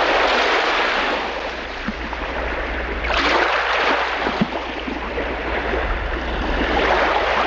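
A loud, steady rushing noise that swells again about three seconds in, over a low hum, and cuts off suddenly.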